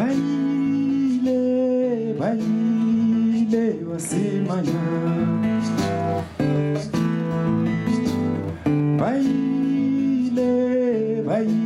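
Live band music: strummed acoustic guitar, with singing over it.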